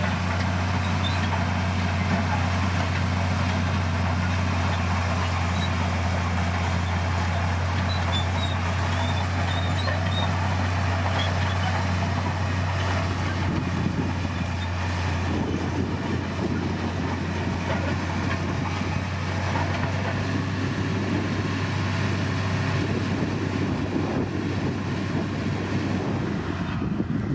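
D60P bulldozer's diesel engine running steadily under work, a continuous low drone with a rougher low rumble coming in about halfway through.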